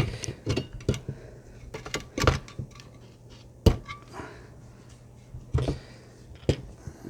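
Scattered clicks and knocks as a computer power supply's metal case and parts are handled on a workbench, with the sharpest knock about halfway through, over a low steady hum.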